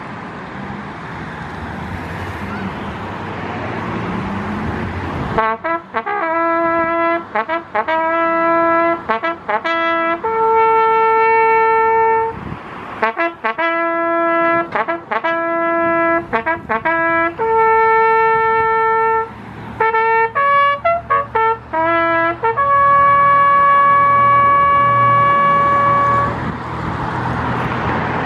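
A lone brass horn playing a bugle call, a phrase of short repeated notes broken by long held notes, beginning about five seconds in and ending on a long high note a couple of seconds before the end. Outdoor traffic noise runs underneath before and after it.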